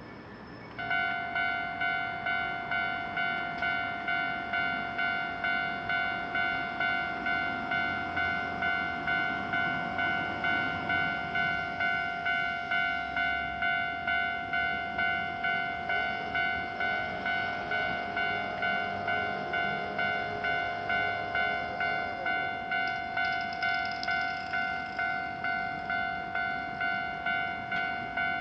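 Japanese level-crossing warning bell starting about a second in and ringing on in a steady, rapid, even ding-ding-ding. Partway through, a Keio Line electric train can be heard passing under the bell.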